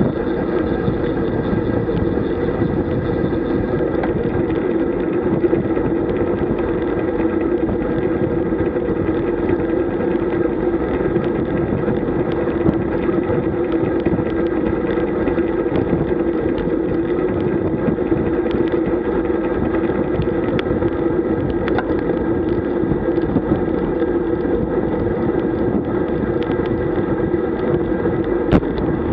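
Steady rush of wind over a bike-mounted camera's microphone, mixed with tyre and road noise from a road bicycle riding at around 37 km/h, making an unbroken drone.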